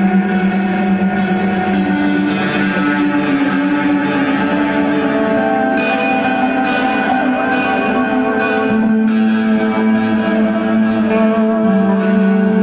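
Live rock band playing slow, sustained electric-guitar chords soaked in echo and reverb, the held notes changing every few seconds.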